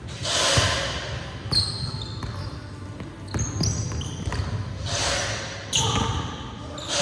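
Basketball bouncing on a hardwood gym floor during a dribble, a few separate knocks, with sneakers squeaking briefly on the floor. Swells of rushing noise come and go over them.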